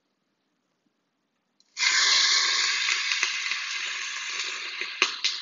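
Raw chicken pieces hitting hot oil in an Instant Pot, sizzling: the sizzle starts suddenly a little under two seconds in and slowly dies down, with a few light clicks.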